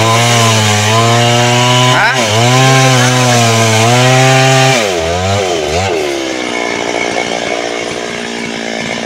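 Two-stroke chainsaw held at high revs, easing off briefly about two seconds in. About five seconds in it falls away with a couple of short blips of the throttle, then runs on more quietly at lower revs.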